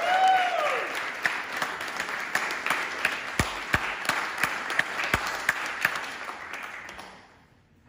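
Audience applauding, with a whooping call rising and falling at the start. The clapping thins out and dies away shortly before the end. A few dull thumps midway come from the microphone being handled.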